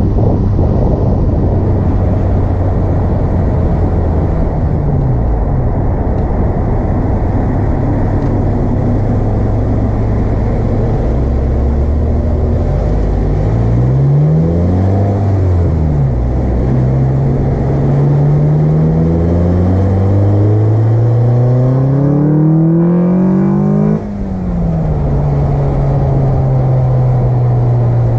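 Car engine fitted with an Acuity cold air intake, running steadily. About halfway through the revs rise briefly and fall back. Then they climb steadily for about eight seconds, drop abruptly, and settle into steady running again.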